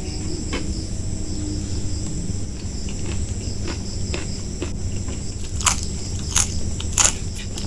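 Close-up chewing and crunching of food, with scattered small clicks and three sharper crunches a little over half a second apart near the end. Crickets chirr steadily in the background.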